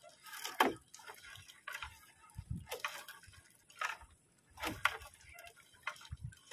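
Water splashing and sloshing in short, irregular bursts, about one a second.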